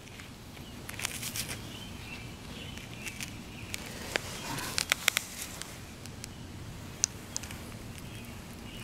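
Gloved fingers working dirt and grit off a freshly dug coin: soft rubbing with scattered small clicks and crackles, a quick cluster of them about halfway through.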